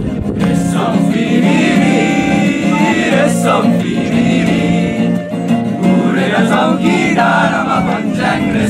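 A group of voices singing a song together to acoustic guitar accompaniment, the singing coming in about half a second in over the guitar.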